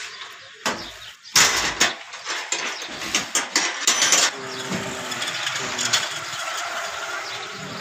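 Goods being handled at a shop counter: a sudden loud rustle about a second and a half in, then a quick run of clicks and crinkles for a couple of seconds, settling into a steady background hiss.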